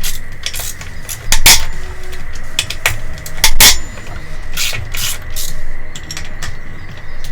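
Hand tools clinking and scraping against metal while bolts are taken off a dirt bike's frame: irregular sharp metallic clinks and rattles, two of them louder than the rest.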